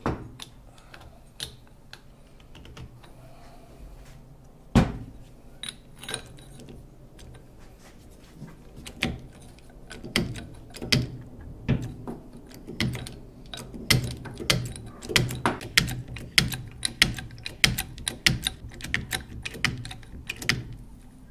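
Hydraulic bottle jack mounted upside down, pumped by hand with its lever handle: repeated metallic clicks and knocks from the pump linkage, one to two a second, as the ram extends. A single sharp knock comes about five seconds in, the loudest sound here.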